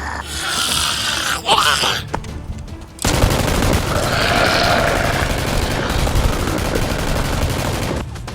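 Dubbed rapid-fire gunfire sound effect, a dense burst that starts suddenly about three seconds in and runs for about five seconds, over background music.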